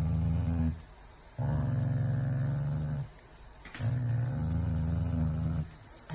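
Corgi growling low in three long bouts, guarding its food: a warning against anyone touching the treat tub.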